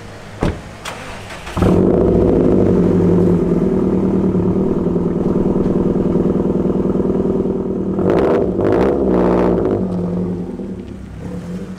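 Subaru WRX's turbocharged flat-four engine starting with a sudden burst, then idling steadily. About eight seconds in it revs as the car pulls away, and the sound fades near the end.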